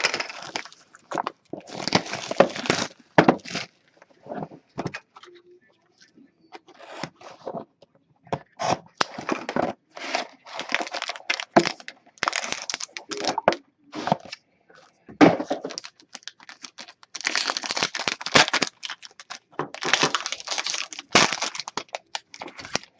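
Hockey card packaging being torn open and handled: irregular tearing, crinkling and crackling of wrapper and plastic, with brief rustles and clicks.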